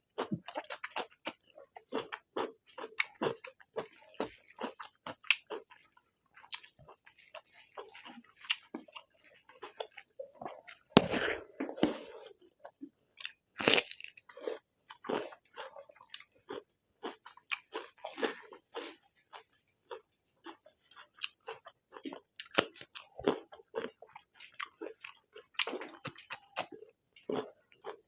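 Close-up eating sounds: wet chewing and lip-smacking of rice and egg curry, with quick irregular clicks throughout. Two louder, sharper sounds stand out, one about eleven seconds in and another near fourteen seconds.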